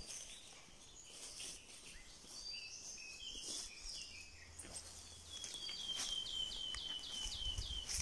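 Woodland birdsong: scattered short calls, then near the end one bird sings a run of about ten quick notes stepping slowly down in pitch. Faint footsteps and rustling of leafy undergrowth as someone walks through it.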